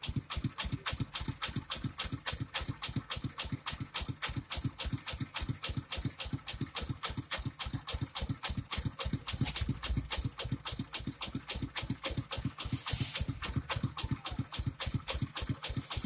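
Engine of a trailer-mounted rice milling machine running steadily, an even rapid chugging of about four to five beats a second as it drives the mill. A brief rush of hiss comes about two-thirds of the way through.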